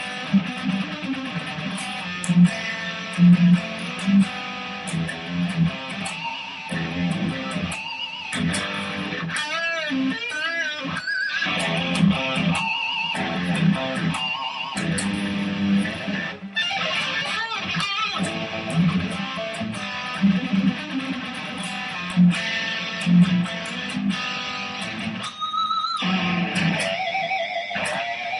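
Custom-built Ibanez Fireman electric guitar played through an amp on its DiMarzio Tone Zone bridge pickup: riffs and lead lines, with wavy vibrato on several held notes.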